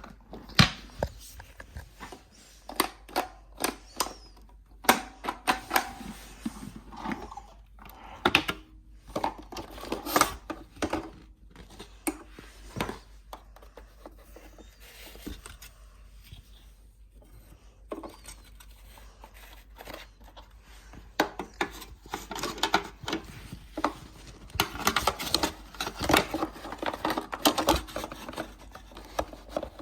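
Handling noises from a vacuum cleaner and its packaging: irregular clicks, knocks and rustling, busiest in the last several seconds. The vacuum's motor is not running.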